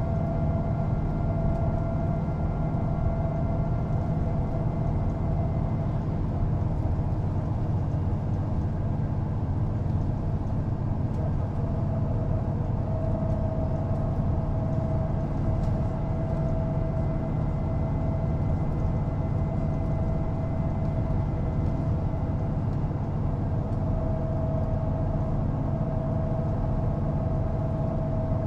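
Mercedes-Benz O405NÜ bus under way, its engine and drivetrain running steadily as a strong low hum, with a whine that fades for a few seconds in the middle and comes back.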